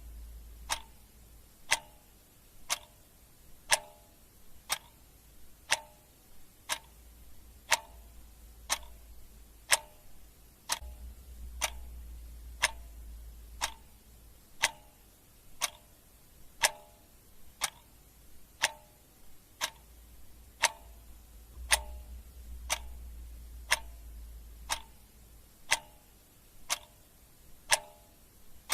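A clock ticking steadily, about once a second, each tick sharp with a short ring. A faint low hum swells and fades underneath a few times.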